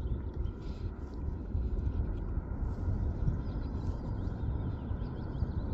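Wind buffeting the microphone outdoors, a steady low rumble, with faint bird chirps in the background in the second half.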